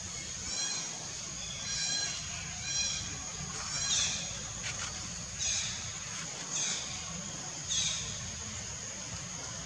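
A series of short, high-pitched animal calls, each arching down in pitch, repeated roughly once a second over a steady high insect drone.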